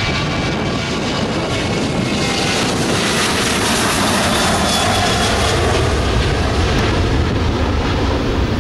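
Boeing 737-800's CFM56-7B turbofan engines at takeoff thrust as the jet rolls, lifts off and climbs away: a loud, steady rush of jet noise with a faint high whine.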